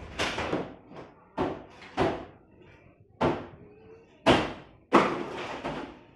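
Metal baking trays clanking, about six sharp bangs over five seconds, each ringing briefly before it dies away. The loudest two come about four and five seconds in.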